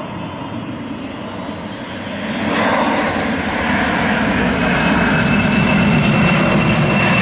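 Jet noise from a Boeing C-17 Globemaster's four turbofan engines as it flies over. It grows louder about two and a half seconds in and stays loud, with a steady high whine coming in near the end.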